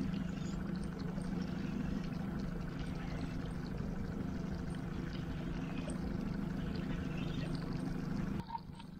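A boat motor running with a steady low hum, which stops abruptly near the end.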